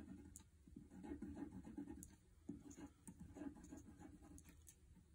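Wax crayon scratching on paper, faint, in clusters of short strokes with brief pauses, as small marks are dabbed and colored in.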